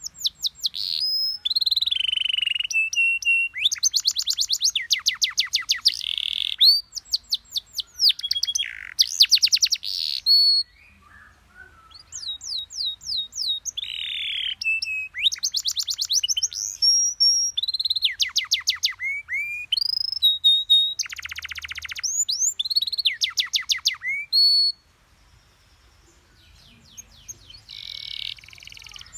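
Domestic canary singing a long, varied song: fast trills and runs of quick repeated notes, some falling in pitch, with a couple of short pauses between phrases.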